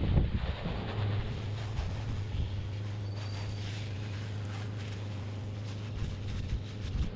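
An engine running steadily with a low hum, under gusty wind noise on the microphone.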